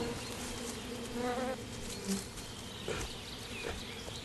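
A swarm of honeybees buzzing steadily around a log hive that a brown bear has broken open; the bees are roused to defend the colony. A few faint clicks sound through the buzz.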